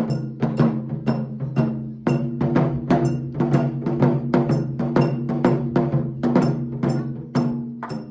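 Japanese taiko drum ensemble playing, with an even run of sharp stick strikes, about four a second, over the drums' sustained low ringing.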